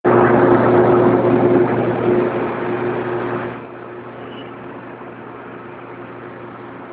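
PVC seal strip extrusion line running: a loud, steady machine noise with a constant low hum and a higher steady tone. About three and a half seconds in, the noise drops markedly, leaving the steady hum.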